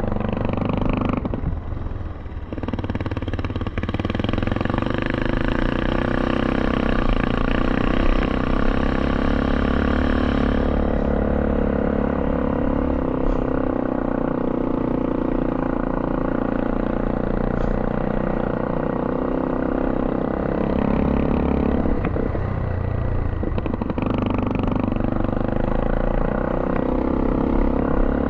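A three-wheeler ATV's engine running steadily as it rides along a dirt track. The engine eases off briefly about two seconds in and again later on, then picks back up.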